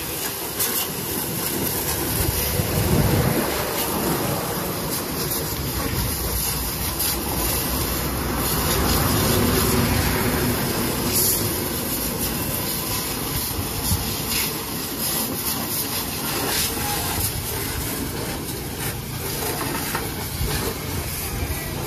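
High-pressure water jet from a pressure-washer wand spraying a muddy tractor's rear wheel, hitch linkage and fender: a steady hissing spray of water spattering on metal and tyre rubber.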